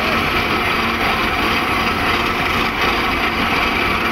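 Malkit combine harvester's engine and machinery running steadily, an even mechanical drone with no breaks.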